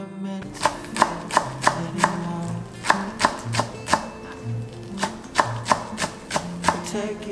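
Kitchen knife slicing spring onions on a wooden cutting board: a steady knock of the blade on the board about three times a second, starting just under a second in.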